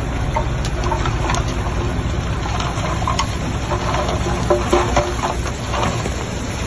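Heavy diesel engine of construction machinery running steadily, with scattered crackles and clanks over the low rumble.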